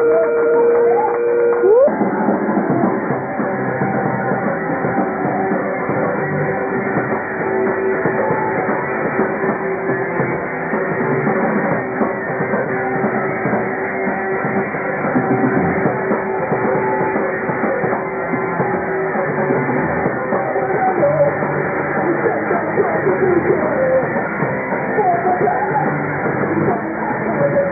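A rock band playing live, with electric guitars and a drum kit going full on; a held note sounds for the first couple of seconds before the full band comes in.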